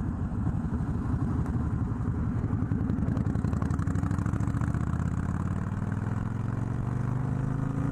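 Motorcycle engine running under way, its pitch climbing slowly and steadily through the second half as the bike gains speed.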